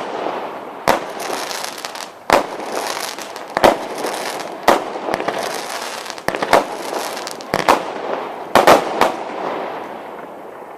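Consumer fireworks going off: a string of sharp bangs roughly once a second, with a crackling hiss between them, dying away near the end.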